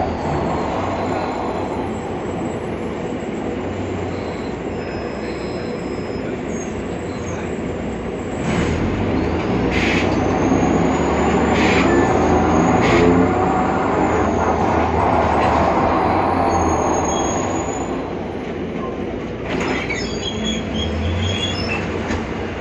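Heard from inside a BredaMenarini Avancity Plus city bus under way: steady drivetrain and road noise, with a thin high whine from the differential that rises and then falls in pitch as the bus picks up speed and slows. A few sharp knocks come through near the middle.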